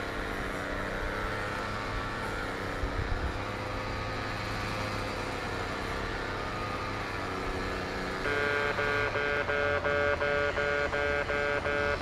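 Steady background hum, then about eight seconds in a Japanese railway level-crossing alarm starts up: an electronic crossing bell ringing in a fast, even rhythm, signalling that the crossing has been activated for an approaching train.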